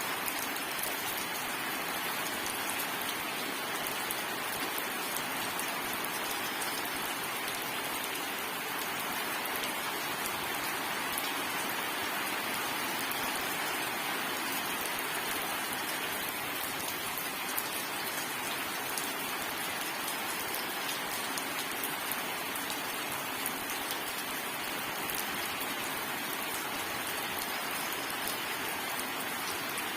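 Steady, heavy rain falling and pattering on surfaces, an even wash of rain noise with scattered drop ticks and no thunder.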